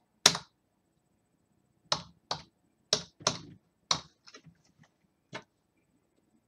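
Computer keyboard keys being typed one at a time: about eight separate keystrokes at uneven spacing, the loudest just after the start.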